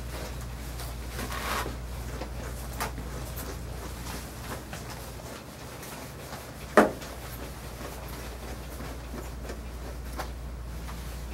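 Grooming brush working through a long-haired dog's coat: soft rubbing strokes with scattered light clicks and knocks, and one sharper click about seven seconds in, over a steady low hum.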